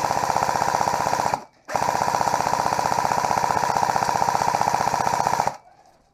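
Airsoft rifle firing on full auto close to the microphone: one long burst of rapid, even shots, a brief break about a second and a half in, then a second long burst that stops about five and a half seconds in.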